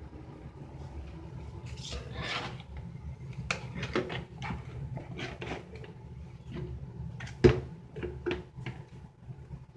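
Plastic toiletry bottles knocking and sliding on a bathroom countertop as they are handled, a run of small knocks and rubs with one sharp knock about seven and a half seconds in. A steady low hum runs underneath.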